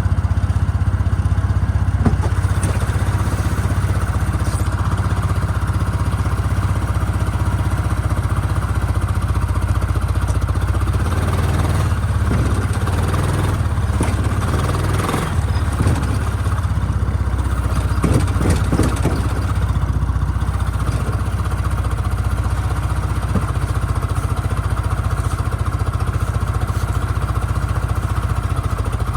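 A UTV engine running steadily with a low, even hum, with some clattering and knocks near the middle.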